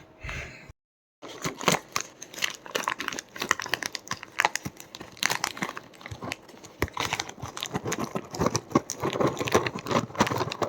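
Crinkling and tearing of a plastic snack packet, a dense run of irregular crackles and clicks, starting after a short dead gap about a second in.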